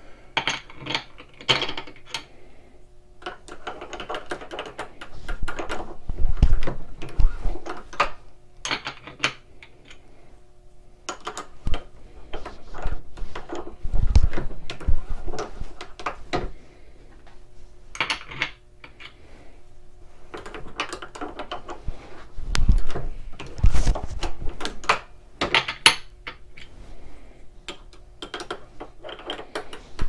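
Single-stage reloading press being worked through its strokes to factory-crimp .416 Barrett rounds: the handle and ram clunk, and brass cartridges clink against the shell holder and the loading block in repeated clusters.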